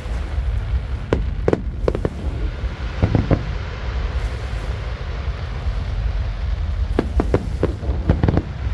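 Fireworks going off: clusters of sharp pops and bangs about a second in, around three seconds in, and again near the end, over a steady low rumble of wind on the microphone.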